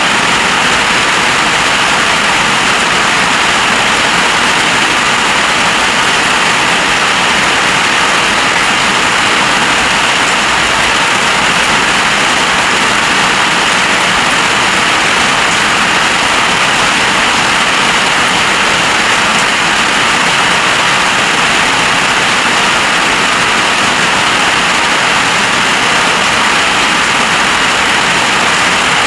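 Heavy storm rain pouring down, a loud, unbroken hiss.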